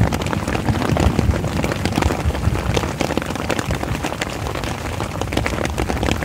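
Heavy rain falling on a tent, a steady downpour with many small drop hits close by.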